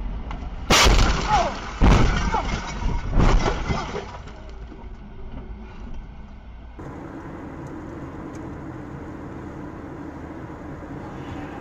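Car crash: a loud impact about a second in, then two more crunching hits over the next two seconds as the car runs into the back of a truck trailer, with breaking and scraping sounds. It gives way to steady road noise from a car driving at speed.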